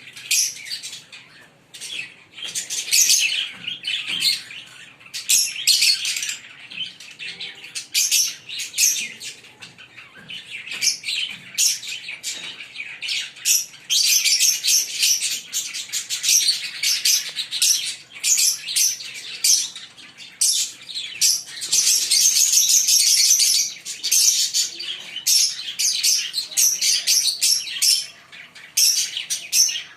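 A pair of green Fischer's lovebirds chattering: quick runs of short, high-pitched chirps throughout, busiest about halfway through and again around two-thirds of the way in.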